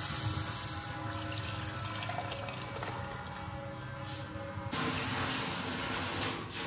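Milk poured in a steady stream from a metal pan into a clay pot, splashing as the pot fills. The pouring grows brighter and fuller nearly five seconds in.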